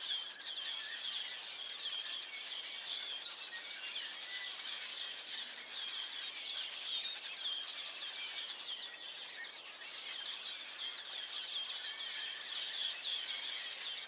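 A flock of hundreds of birds chattering together, a dense, unbroken mass of overlapping high chirps and calls.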